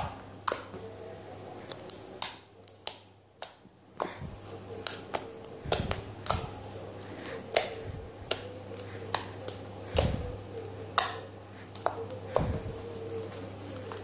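Fluffy white slime made with shaving foam and clear glue being squeezed and stretched by hand, giving irregular sharp pops and clicks, a few of them much louder. A steady low hum runs underneath.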